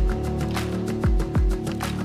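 Background music with sustained tones and deep drum hits that drop in pitch.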